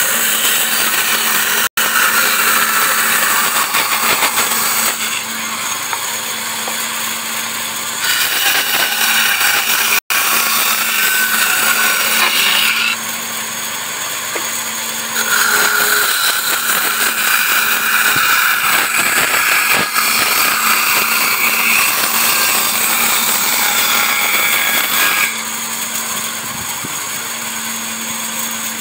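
Bandsaw running and cutting a wooden spoon blank: a continuous saw whine with a steady motor hum, the level stepping up and down in stretches of several seconds.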